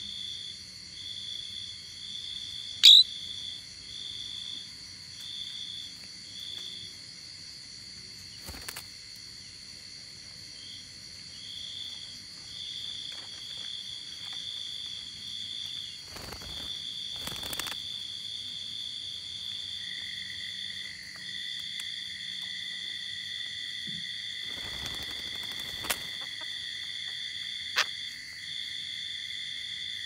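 Insects trilling in a steady chorus: a high, pulsing trill that breaks off now and then, over a constant higher whine, with a lower steady tone joining about twenty seconds in. One short, loud, sharp sound about three seconds in.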